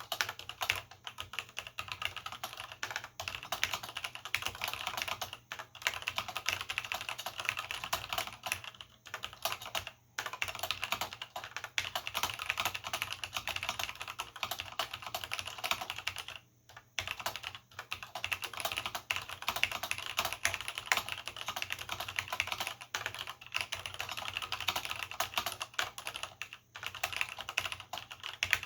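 Continuous fast typing on a vintage Cherry G80-0693/c mechanical keyboard with linear Cherry MX Black switches and original Cherry doubleshot keycaps, a dense run of keystroke clicks with a few short pauses.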